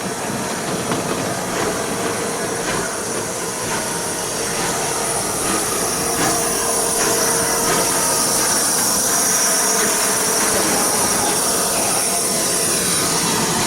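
Train rolling past, its wheels clicking over the rail joints at an uneven rate, getting louder. A high steady ringing tone builds in the second half.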